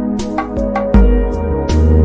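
Background instrumental music: sustained layered tones with light percussive hits.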